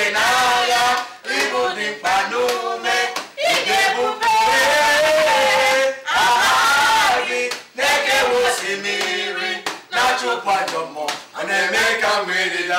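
A man and a woman singing a fervent praise song together, with some long held notes.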